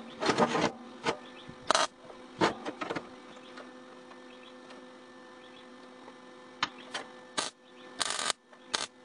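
MIG welder striking a short tack weld about eight seconds in, a brief crackle of the arc that is the loudest sound. Before it come a few short knocks of steel pieces being handled on the steel welding table, over a steady electrical hum.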